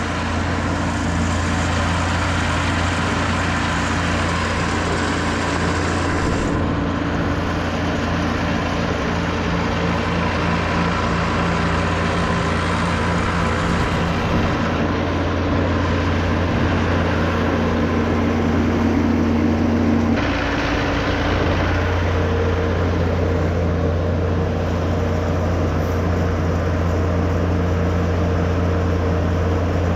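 Engine running steadily, its tone shifting slightly about twenty seconds in.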